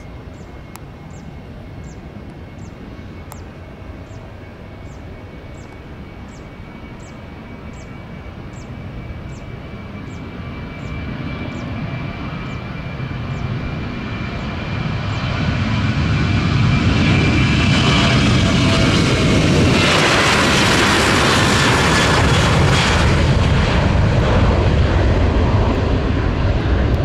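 Boeing 737-800's CFM56-7B turbofans at takeoff power during the takeoff roll and climb-out. The sound grows steadily louder over the first half and is loud from about two-thirds of the way in. A whine falls in pitch as the jet passes.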